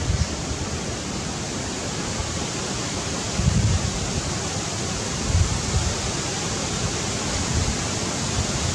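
Steady hiss of wind buffeting the microphone outdoors, with low rumbling gusts about three and a half and five and a half seconds in. No monkey calls.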